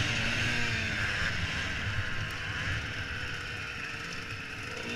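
Dirt bike engine easing off, its revs dropping in the first second, then running low as the bike rolls along. Wind rushes over the helmet-mounted microphone throughout.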